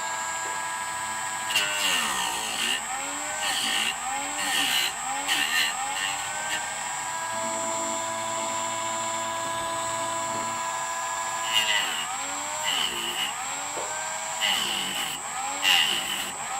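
Dremel rotary tool whining at a steady high pitch while grinding a Hogue AR-15 grip freehand. The pitch dips and wavers with each of about eight short grinding passes, as the bit bites into the grip.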